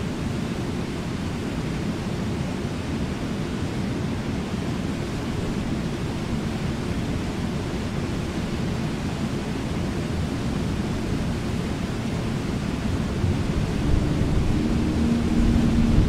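Steady rush of river rapids, a low, even wash of water. A faint steady tone joins near the end.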